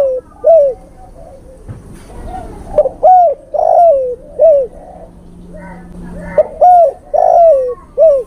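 Male spotted dove cooing its call to females. A coo comes right at the start, then two phrases of three or four coos a few seconds apart, each coo rising then falling in pitch.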